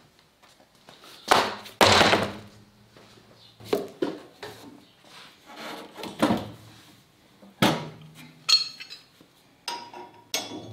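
Scattered clanks and knocks of metal tools and saw parts as the blade on a sliding panel saw is changed, with spanners going onto the arbor nut. A few of the later knocks carry a short metallic ring.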